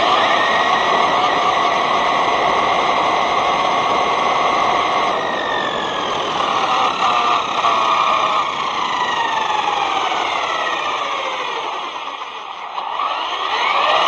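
Brushless electric motor of a ZD Racing Pirates 2 RC truck whining, its pitch rising and falling with the throttle, over a rushing noise from tyres and drivetrain. Near the end it eases off briefly, then climbs back up.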